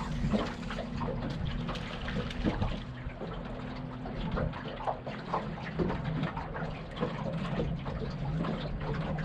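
Water lapping and splashing against a small boat's hull in irregular little slaps, over a steady low hum.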